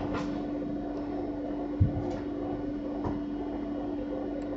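Steady low hum of a bread machine running in the room, with a soft thump a little under two seconds in and a few faint clicks.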